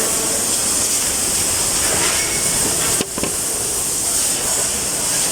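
Steady, even hiss, with a single sharp click about three seconds in.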